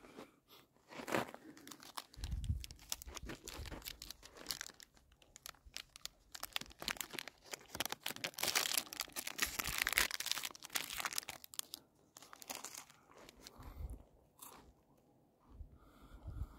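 Irregular crunching and crinkling close to the microphone, with a denser stretch of rustling about eight to eleven seconds in.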